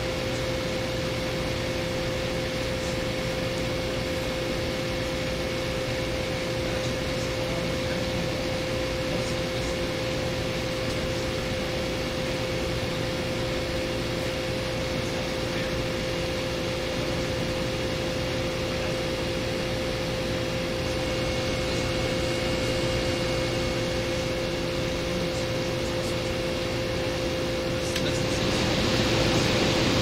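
Room air conditioner running with its compressor under pressure: a steady hum with several held tones under the fan's airy rush. The rush grows louder near the end.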